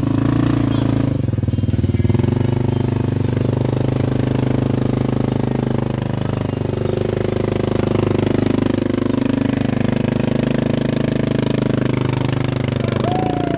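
Side-by-side UTV engine running steadily at low, near-constant revs as the vehicle crawls over rock, its pitch rising and dipping only slightly.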